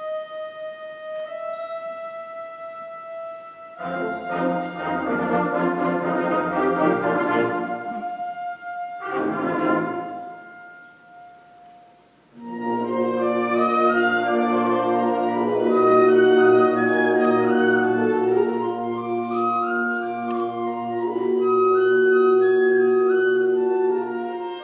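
Orchestral music with held chords of brass and woodwinds. It dies down almost to nothing about halfway through, then a fuller passage of sustained chords over a steady low note comes in suddenly.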